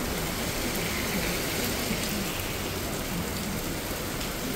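Heavy rain falling on a wet street and pavement, a steady hiss.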